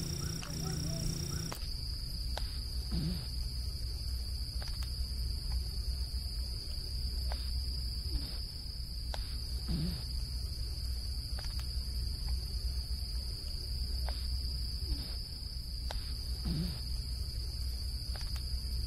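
Steady high-pitched chirring of night insects such as crickets over a low hum. A faint short low call comes three times, about seven seconds apart, as the short recording repeats.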